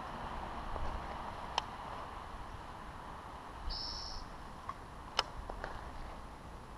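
Steady outdoor background hiss with a few sharp clicks from a baitcasting rod and reel being handled. There is a brief high buzz a little before the middle, and the loudest click comes past the middle.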